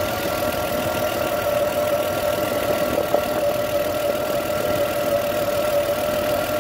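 Hyundai Genesis Coupe engine idling with a steady whine from the alternator, the sign of worn alternator bearings.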